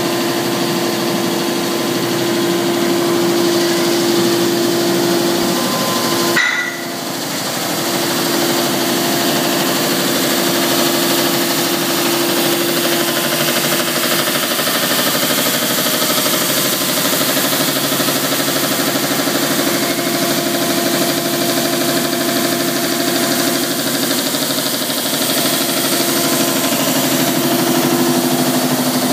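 Paul Ernst Pluto L deburring machine running steadily while 40 mm steel plates pass through it to have their burrs removed and edges rounded. It makes a constant hum with a broad hiss over it. A single sharp knock comes about six seconds in.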